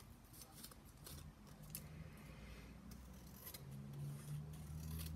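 Scissors snipping through thin card, a series of faint, irregular cuts.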